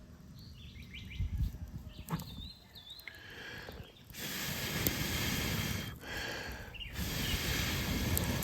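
Outdoor ambience: wind on the microphone with a couple of swells of hiss, and a bird chirping briefly about two seconds in.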